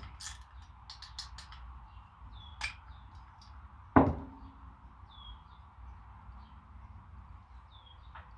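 Hand tools at work on a motorcycle clutch lever: a run of small clicks, then about four seconds in a single sharp clank that rings briefly. Faint bird chirps come in now and then.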